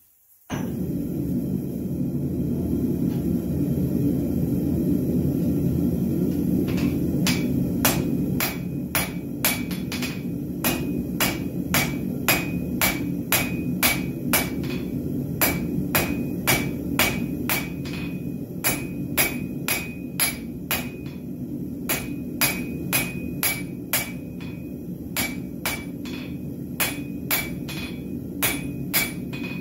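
Hand-hammer blows on a red-hot steel bar over the anvil, drawing half-inch round stock down to 3/8 square. The strikes start about seven seconds in and keep an even rhythm of roughly two a second, each with a bright metallic ring. Under them runs a steady low roar, the gas forge burner running.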